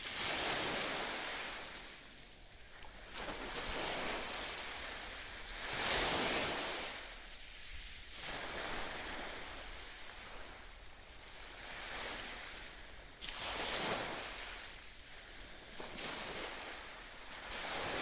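Sea waves washing in: a hiss that swells and fades every two to three seconds.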